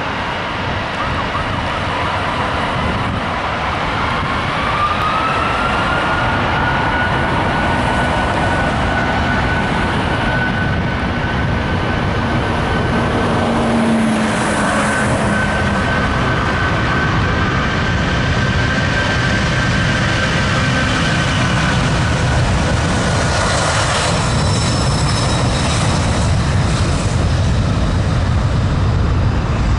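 Boeing 747-400's four Rolls-Royce RB211 jet engines at takeoff power: a steady roar with a whine that rises in pitch about five seconds in, then holds, the roar growing slowly louder as the aircraft rolls past on its takeoff run.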